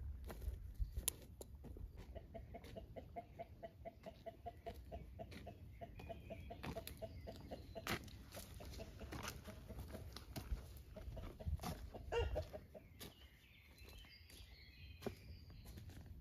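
A chicken clucking in a long run of short, evenly spaced notes, about four a second, stopping about twelve seconds in. Footsteps on dry ground and leaf litter run beneath it, and small birds chirp faintly.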